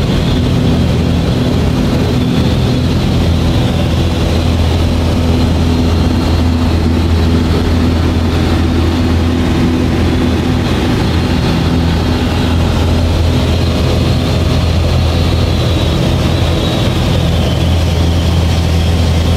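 Light aircraft's piston engine and propeller running steadily in cruise, a loud, even drone with a hiss, heard from inside the cockpit.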